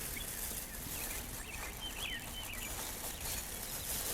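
Small songbirds chirping: a few clusters of short, quick, sliding notes between about one and three seconds in, over a steady low background rumble.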